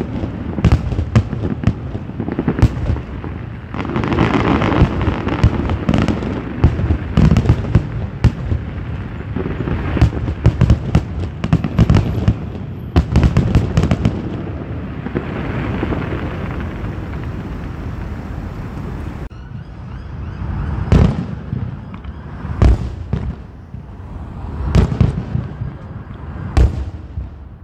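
Aerial firework shells bursting in a rapid, dense barrage mixed with crackling. About two-thirds of the way through this gives way to fewer, separate bangs a second or two apart.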